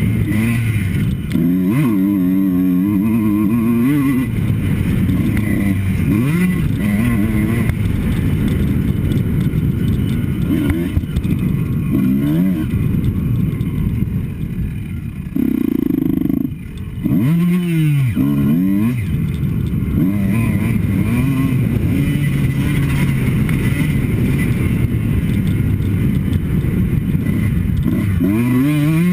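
Kawasaki KX two-stroke motocross bike engine revving hard and easing off again and again as it is ridden round a dirt track. The throttle drops off briefly about halfway through before the revs climb again.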